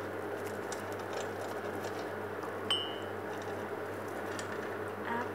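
Faint taps and scrapes of a silicone basting brush oiling the nonstick plates of an electric mini-donut maker, with one sharp clink that rings briefly about two and a half seconds in, over a steady low hum.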